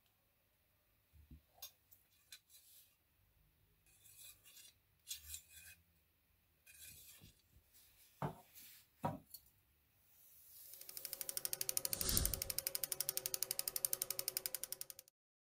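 Large steel scissors handled on a workbench: light metal clicks and rubs, then twice, about eight and nine seconds in, the blades sweep across each other with a scraping stroke that falls in pitch. From about ten seconds in, a loud, rapid, even clicking like gears or a ratchet turning, the sound effect of an animated gear logo, which cuts off suddenly near the end.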